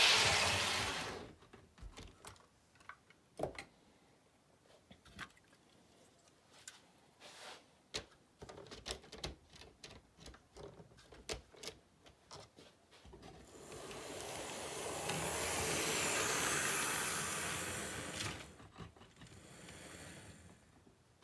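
HO scale model trains running on the layout: one passes close right at the start and fades within a second, then scattered light clicks, then a second train swells in, passes with a broad rushing rumble and fades out over about five seconds.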